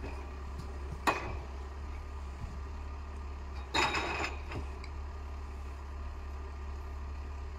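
Valtra 8550 tractor's diesel engine running steadily at low revs while its Kronos forestry crane loads branches. A sharp metallic knock comes about a second in, and a louder rattling clatter of about a second near the middle, as the crane and grapple work.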